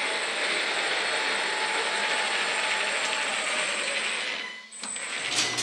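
1/14-scale RC4WD 797F all-metal mining truck driving, its brushless motors and gear drive making a steady mechanical whir that stops about four and a half seconds in. Near the end a low steady motor hum starts, with a couple of clunks, as the garage door opener begins raising the door.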